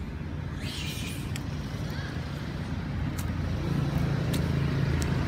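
A motor vehicle's engine running steadily, getting louder about three and a half seconds in, with a few faint sharp clicks over it.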